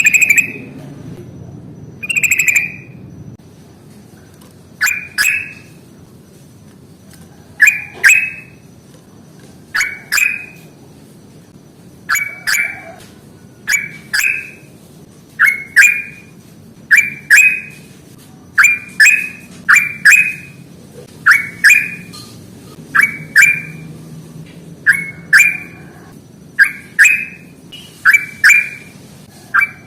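Yellow-vented bulbul (trucukan) calling in short, bubbly phrases pitched around 2 kHz. The phrases repeat every second or two, often in quick pairs, and come more densely in the second half.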